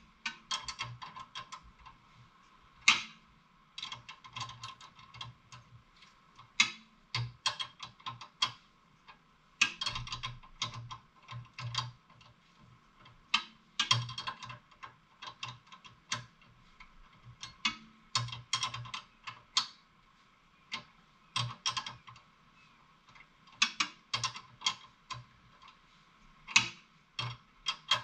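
Hand ratcheting wrench clicking in quick runs with short pauses between them, as a nut is turned on a rear sway bar link bolt.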